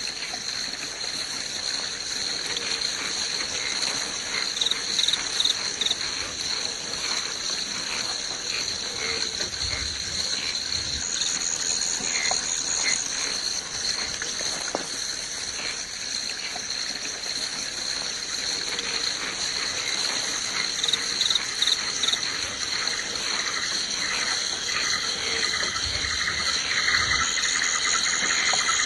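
Woodland ambience of insects such as crickets chirping in a steady, high, unbroken drone, with a few scattered short chirps over it.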